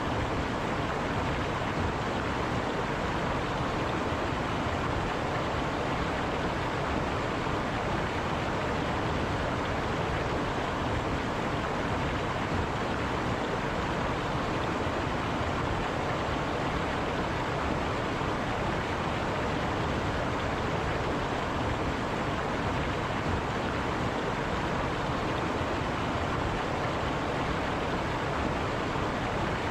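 River water rushing steadily over rocks, a continuous even rush with no pauses or changes.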